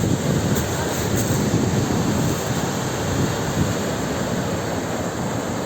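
Sea waves: a steady, unbroken wash of surf.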